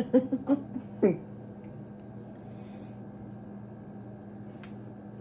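A few short voice sounds in the first second, the last sliding down in pitch. A steady low hum follows, with a brief soft hiss about halfway and a single click near the end.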